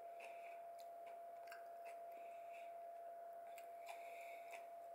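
Faint chewing with the mouth closed, with a few small clicks and a steady faint hum underneath.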